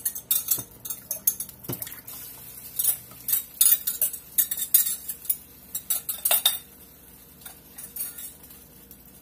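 Wire whisk clinking and scraping against a glass measuring cup as the creamy soup mixture is poured out into a stainless steel pan: a run of sharp, irregular clinks that stops about six and a half seconds in.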